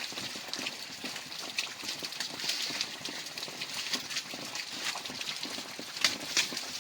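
Heavy rain falling steadily, with irregular drips and taps throughout and a couple of louder taps near the end.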